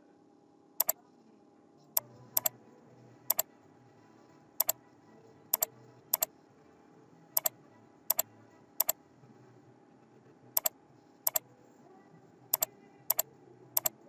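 Computer mouse button clicks, about fifteen of them spread unevenly, each a quick double click of press and release, over a faint steady hum.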